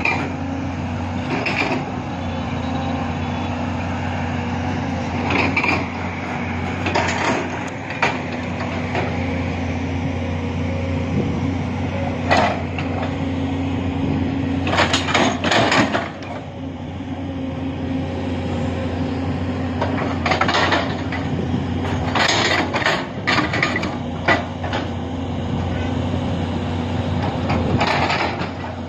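SANY long-reach crawler excavator's diesel engine running steadily, with the hydraulics working as the bucket digs earth, and repeated short clanks and scrapes from the bucket and arm.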